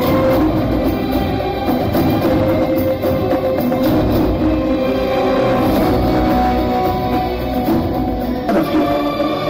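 Music with drums and percussion under sustained held notes, playing as the stunt show's soundtrack.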